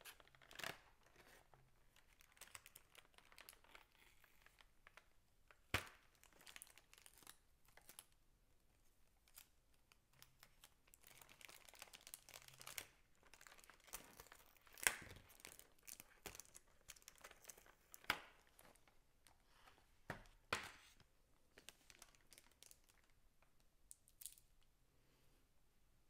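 Clear plastic blister packaging and a thin plastic bag crinkling and crackling as they are handled, with a few sharp plastic snaps scattered through, the loudest about fifteen seconds in.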